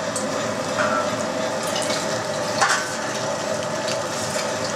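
Electric meat grinder running steadily with a constant hum as meat and pork fat are pushed through it, with one short knock about two and a half seconds in.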